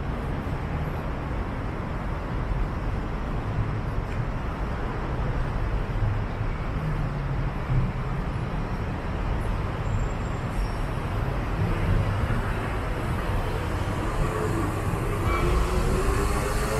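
Steady city street traffic noise. Near the end a motor scooter comes close, its engine note rising.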